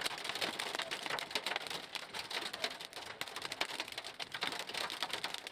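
Hailstones pelting a car's roof and windshield, heard from inside the cabin: a dense, rapid clatter of hard impacts.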